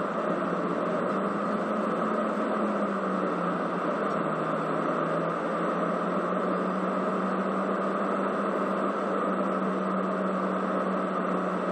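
Steady cabin noise of a jet airliner in flight: engine and airflow noise heard inside the passenger cabin while descending, with a low, steady engine hum that briefly shifts lower about four seconds in.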